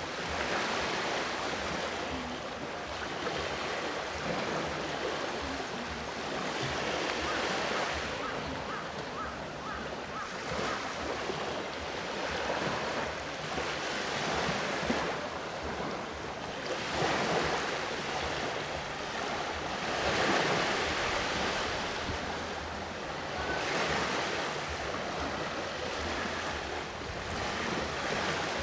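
Sea waves washing onto the shore at Enoshima, the rush of surf swelling and falling back every few seconds.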